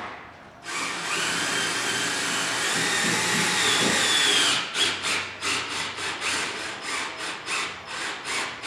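Power drill with a Phillips bit driving a stainless steel self-tapping screw into a golf cart frame: a steady whir for a few seconds, then short bursts about three a second as the screw slowly cuts its way in.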